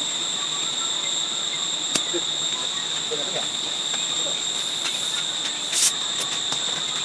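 Steady, high-pitched shrilling of insects, with a short click about two seconds in and a louder sharp clack near six seconds.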